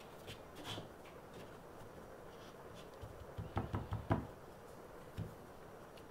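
Chicken drumstick dredged by hand in a wooden bowl of flour: soft rustling, then about five dull knocks in quick succession a little past the middle and one more a second later as the floured drumstick is shaken and knocked over the bowl.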